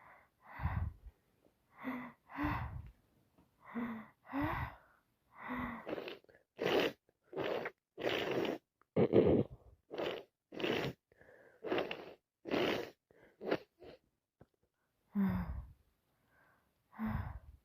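A person with a cold sneezing over and over, each sneeze a short breathy burst with an audible gasp before it. The bursts come about one every half second to second, thickest and sharpest in the middle stretch.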